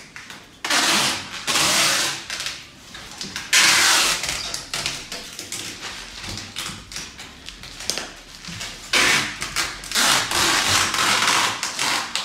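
Clear packing tape being pulled off its roll in several long, screechy stretches and pressed down onto a cardboard box, with short pauses between the pulls.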